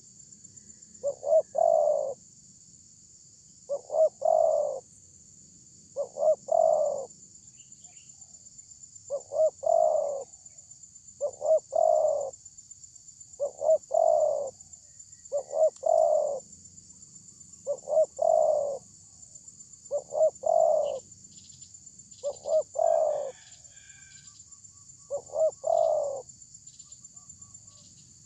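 Spotted dove cooing in a steady series: about a dozen phrases, each of two or three short notes running into a longer one, repeated every two to three seconds.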